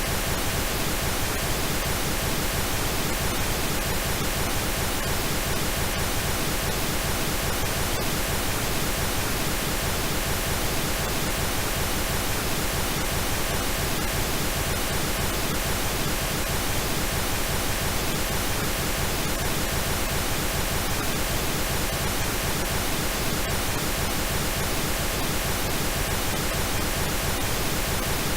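Synthetic pink noise: a steady, even hiss spread across all pitches, unchanging throughout.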